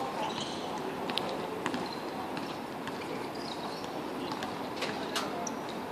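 Steady outdoor background hum and hiss, with a few sharp knocks of a football being kicked on a hard court and a few brief high squeaks.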